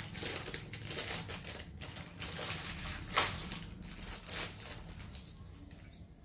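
Crinkling, rustling handling noise with many small clicks and one sharper click about three seconds in, as glass bangles are picked up and handled.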